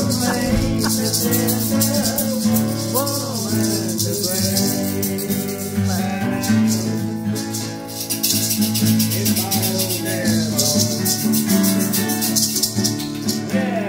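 Acoustic guitars played together, with a maraca shaken in time over them.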